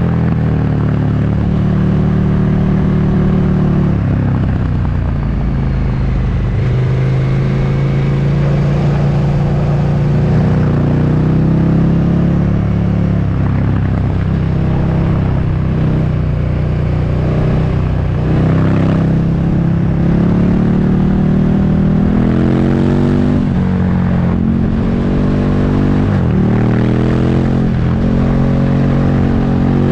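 Motorcycle engine running under way, its pitch rising and falling with the throttle and gear changes, with several quick revs near the end.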